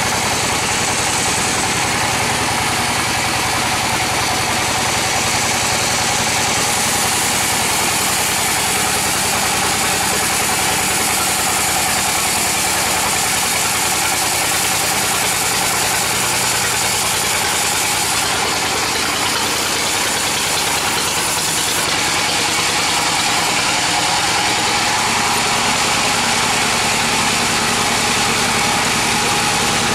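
Band sawmill machinery running steadily: the blade and its drive make a constant mechanical hum and whine.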